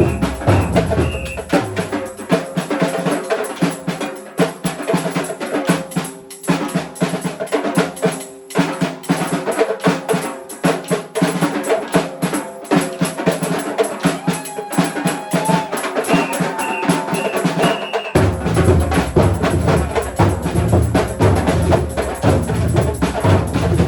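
Batucada percussion ensemble playing a groove. The deep bass drums drop out about two seconds in, leaving only the higher drums and bells, then come back together with a sudden entry near the end. Short high tones sound just after the start and again just before that re-entry.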